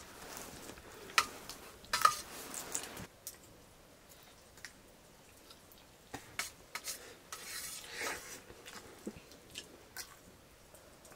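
Irregular clinks, taps and scrapes of utensils and metal dishes, with soft chewing; two sharper clinks come about one and two seconds in.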